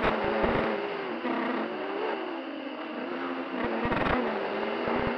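FPV quadcopter's brushless motors whining, their pitch rising and falling as the throttle changes, heard through the onboard camera's microphone. Low buffeting hits the microphone in clusters near the start and from about three and a half seconds in.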